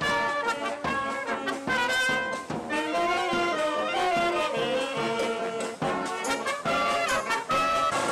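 Street brass band playing a tune, with trombones, trumpets and a clarinet.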